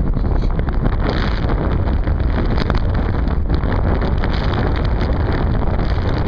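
Steady, loud wind rush over the microphone of a camera taped to a flying RC plane, mixed with the plane's own running noise.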